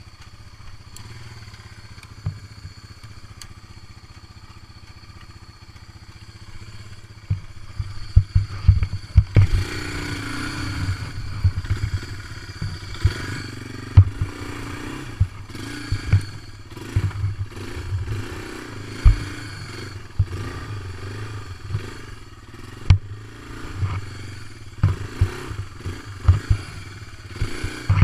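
ATV engine running, quieter for the first several seconds and then louder and revving from about nine seconds in. Many sharp thumps and rattles run through it as the quad jolts over the rough, rutted mud trail.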